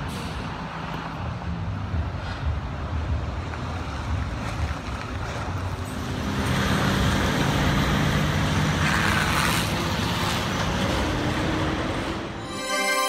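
Street traffic on a wet road: car engines and tyre noise from passing vehicles, louder from about halfway. A short music jingle starts right at the end.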